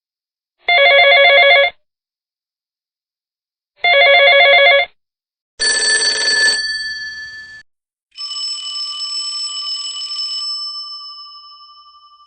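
A telephone bell rings twice in quick trilling bursts of about a second each. Then come two separate struck, bell-like metallic rings, each sounding several clear tones at once. The second rings out long and slowly fades.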